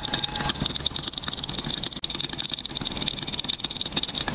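A thin stick stirring freshly mixed two-part epoxy casting resin (Kemapoxy Cast) in a small cup, scraping and ticking rapidly against the cup's sides as the hardener and colour are worked in.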